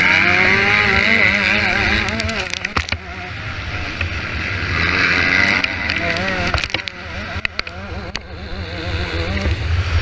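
Motocross motorcycle engines revving, their pitch rising and falling constantly with the throttle, with sharp knocks in two clusters, about two and seven seconds in.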